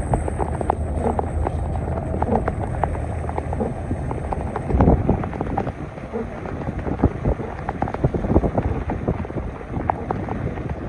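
Heavy rain falling and splashing, with many drops tapping on surfaces close by. Wind rumbles on the microphone for the first few seconds, and there is a louder splash or gust about halfway.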